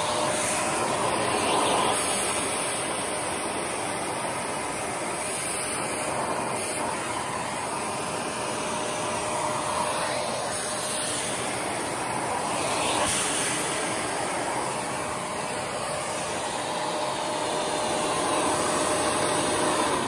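Shark Rotator Pro Lift-Away (ZU782) vacuum cleaner running in lift-away mode, its motor pulling air through the hose and a hand tool pressed to a carpet. It makes a steady rushing noise with a faint steady whine, swelling a little now and then as the tool moves over the pile.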